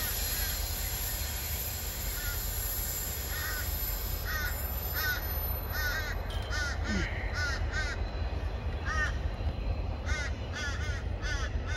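A crow cawing in runs of short, harsh calls, starting about three seconds in, over a steady low rumble.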